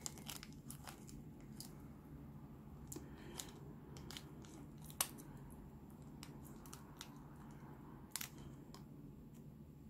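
Faint crinkling of a thin clear plastic sheet being handled, with a few light clicks, over a low steady hum.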